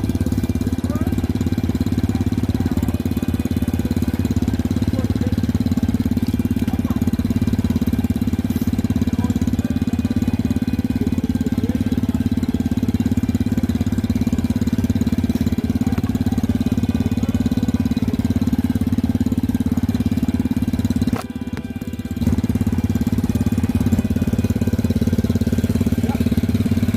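Small off-road vehicle engine idling steadily, with a brief dip in level for about a second roughly three-quarters of the way through.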